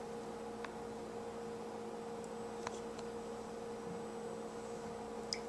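A steady low electrical hum over a faint hiss, with a few faint clicks.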